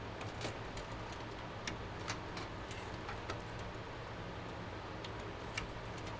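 Scattered faint, irregular light clicks and ticks over a steady low hum.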